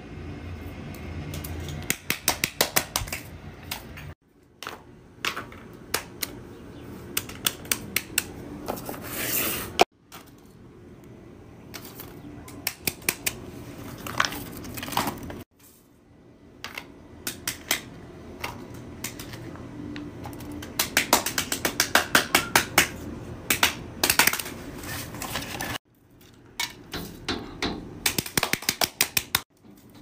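Fidget toys being handled: runs of sharp quick clicks and pops, about four a second at their fastest, in short stretches that cut off abruptly several times, over a faint steady hiss.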